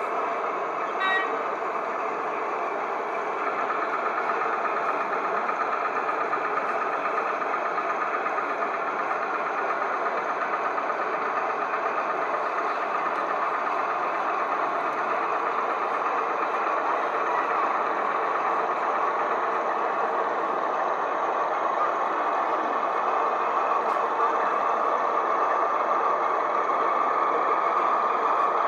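Sound-fitted O gauge model Class 08 diesel shunter running its diesel engine sound steadily from its onboard speaker as it moves slowly along the track. A short horn toot comes about a second in.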